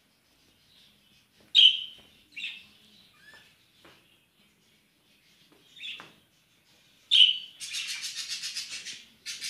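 Budgerigars calling: a few short, sharp chirps spaced out over several seconds, then near the end a loud chirp followed by about a second and a half of fast, rippling chatter.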